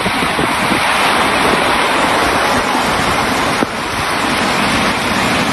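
Loud, steady rush of typhoon-force wind and heavy driving rain, the wind buffeting the microphone.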